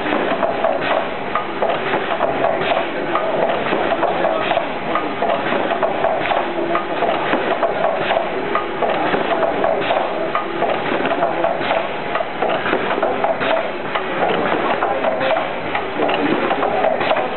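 Ice cream cone denester running: a steady mechanical clatter made of many small clicks and knocks as its release mechanism drops rows of wafer cones onto a conveyor belt.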